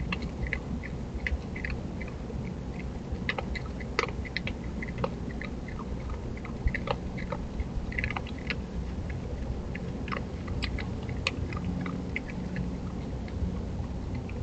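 Virginia opossum chewing food from a dish: a string of irregular sharp clicks and smacks, several a second, over a steady low rumble.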